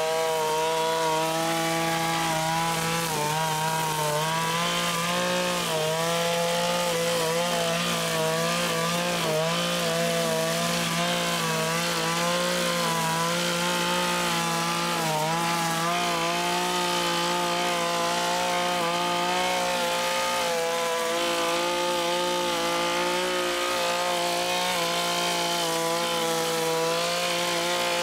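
Zenoah BCZ261 brush cutter's 25.4 cc two-stroke engine running at high speed while its saw-toothed nylon cutter mows grass. The engine note holds steady, dipping in pitch briefly a few times as the cutter takes load.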